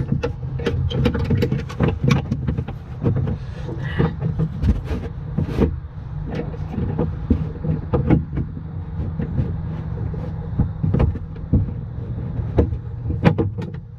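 Repeated sharp metal clicks and knocks of parts being worked into place by hand, over a steady low engine hum.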